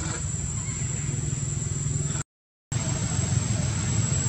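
Steady low rumble with a thin, steady high whine over it, cut by a brief gap of total silence about two seconds in.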